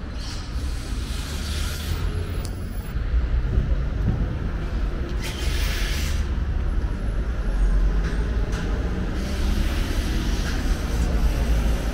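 Road traffic on a busy city street: a steady low rumble of passing vehicles including buses, with a couple of brief hisses, one just after the start and one about five seconds in.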